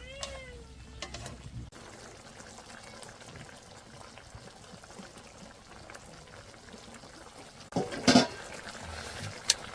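Liquid softly bubbling in a cooking pot, with a short high call near the start and a brief clatter of knocks about eight seconds in.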